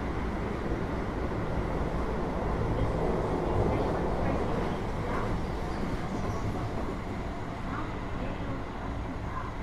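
Interior running noise of a Keio 8000 series commuter train car with a GTO-VVVF inverter: steady wheel-and-rail rumble with a low motor hum, swelling slightly a few seconds in.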